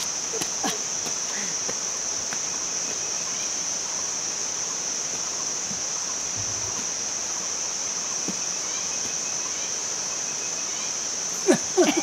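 A continuous, steady high-pitched buzz of forest insects. A few short, louder sounds break in near the end.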